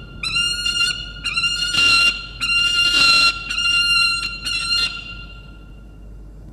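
Juvenile peregrine falcon squawking loudly: about five harsh, drawn-out calls in quick succession, stopping about five seconds in.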